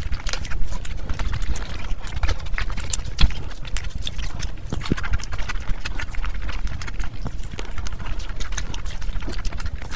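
Close-miked ASMR chewing of a mouthful of fish biryani: a steady stream of quick wet mouth clicks and lip smacks.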